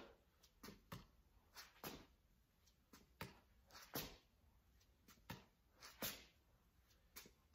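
Near silence with faint short swishes and soft taps every second or so, irregular and sometimes in quick pairs, from a tennis racket being swung through backhand strokes and feet stepping on the floor.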